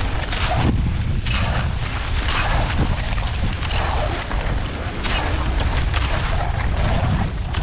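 Wind rushing over the microphone at speed, with the rhythmic swish and scrape of skate skis pushing off on packed, groomed snow, about three strokes every two seconds.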